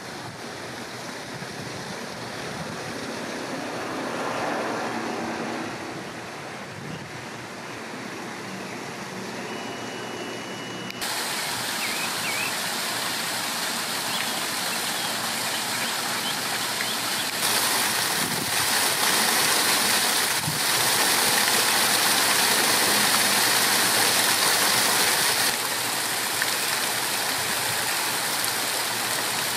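Water spilling down a stacked-rock waterfall fountain, a steady rushing splash that comes in suddenly about a third of the way in and gets louder in steps. Before that, a vehicle's engine hum swells and fades.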